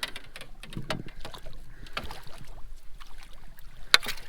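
Scattered knocks, clicks and rattles of gear being handled in a fishing boat while a hooked catfish is brought alongside, with one sharp, loud knock about four seconds in.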